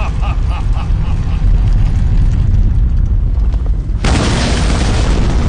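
Action-film sound effects: a heavy, deep rumble, then about four seconds in a sudden loud burst of noise across all pitches that keeps going.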